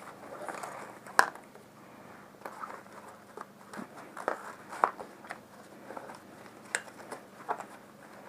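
Handling noise from a nylon sling pack and its straps and buckles: scattered sharp clicks and knocks over soft rustling. The loudest click comes about a second in, with another near the middle.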